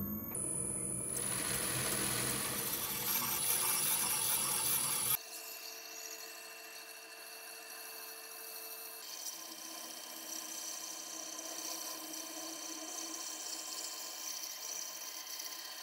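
Electric knife-grinding wheel running. About five seconds in, the sound drops to a quieter steady hiss as a steel deba blade is held against the spinning wheel, grinding back the chipped edge.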